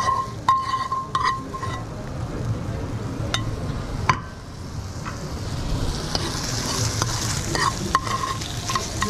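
Stir-frying: a metal utensil scraping and knocking against a hot pan, which rings with each strike, over steady frying. The sizzle swells from about halfway through, and a few more ringing knocks come near the end.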